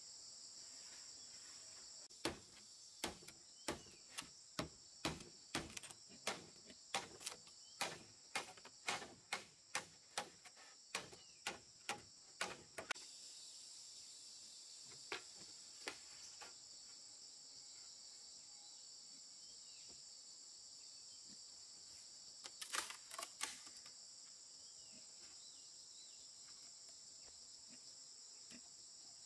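A run of about twenty sharp knocks on wooden poles, roughly two a second, ending about halfway through, with a short burst of knocks later, over a steady high-pitched chorus of crickets or other insects.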